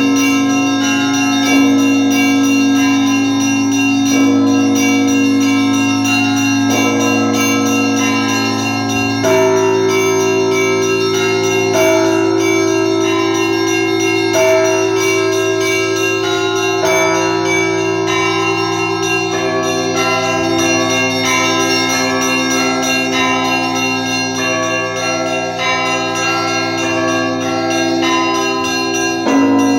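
Russian Orthodox church bells rung together by a bell ringer for a festal liturgy: small bells strike in a quick, rhythmic pattern over the long-ringing tones of the larger bells, with a deep bell struck every couple of seconds.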